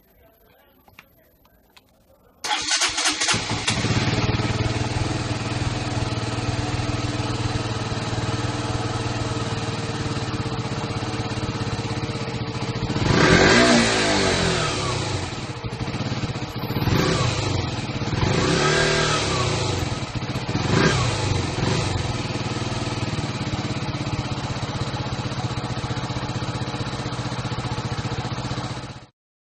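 KTM Duke motorcycle engine cranking briefly and catching about two and a half seconds in, then idling. It is revved up and down a little after the middle, with a few shorter throttle blips after that, and settles back to a steady idle before the sound cuts off suddenly near the end.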